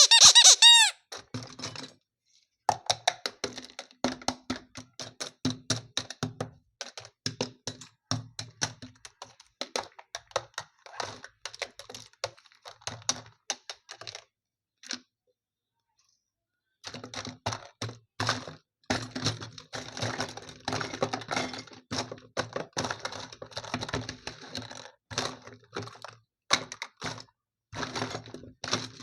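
A sharp ringing strike, then long runs of rapid small clicks and taps like typing, with a faint steady hum beneath them; the clicking stops for about two seconds midway.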